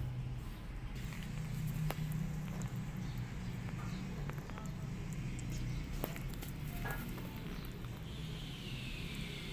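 Two kittens eating wet food from a plate, with small scattered clicks of chewing and licking over a steady low hum. A falling whine comes in near the end.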